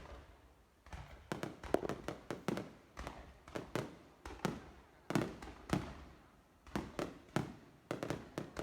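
Aerial fireworks bursting in quick succession: an irregular run of sharp bangs, about two or three a second, each dying away with an echo.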